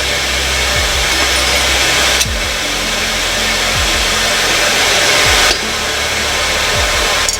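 Steady rushing noise from a motor-driven tool or blower. It grows louder, with sudden changes in level about two seconds in and again about five and a half seconds in.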